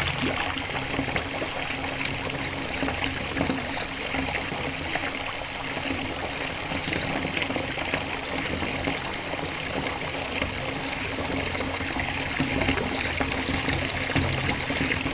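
Steady rush of running, trickling water, with small scattered ticks throughout.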